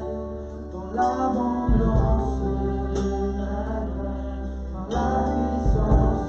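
Church worship music: voices singing a slow song over instruments, with sustained chords and a steady bass that change about once a second.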